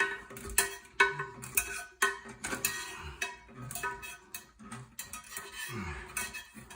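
Irregular clicks and knocks of plastic toilet flush parts being handled and fitted together, with a steady tune underneath.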